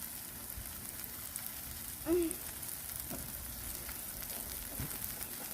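Kale frying in freshly added avocado oil on a Blackstone flat-top griddle: a steady sizzle with fine crackling.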